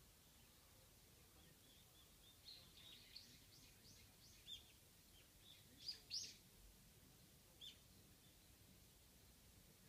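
Japanese white-eye calls: a run of short, high, thin chirps starting a couple of seconds in, with the loudest pair about six seconds in and one last chirp shortly after, over a faint steady background hiss.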